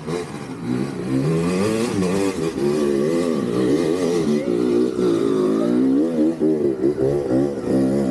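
Dirt bike engine revving hard and unevenly, its pitch rising and falling again and again as the bike labours up a steep, loose dirt trail.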